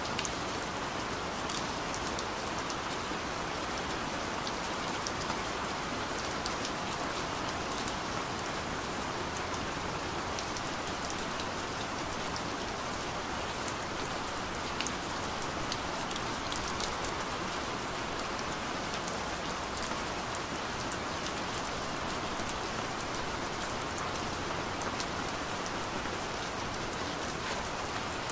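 Steady rain: an even hiss with many small, sharp drop ticks scattered through it.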